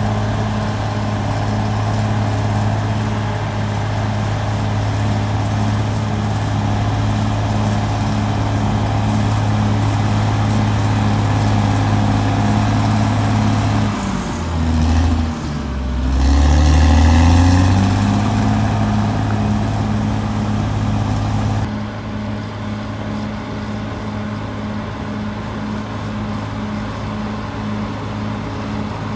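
Caterpillar D6R XL bulldozer's diesel engine running steadily. About halfway through, the engine note drops and then climbs back up as it gets louder, like the engine pulling down under load and recovering. About two-thirds in, the sound turns duller and a little quieter.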